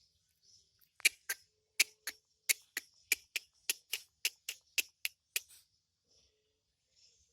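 Javan myna making a run of about fifteen short, sharp clicking sounds, roughly three a second, with faint high chatter before and after.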